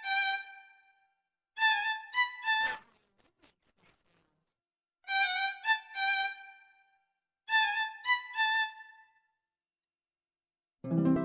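Violin playing four short phrases of two or three high notes each, with pauses of about a second between them. A different, fuller sound comes in just before the end.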